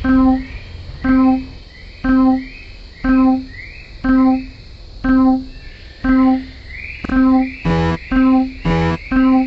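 Railroad crossing warning signal sound effect: a pitched electronic ding repeating about once a second. Near the end a second, buzzier tone joins and alternates with it, so the signal sounds about twice a second.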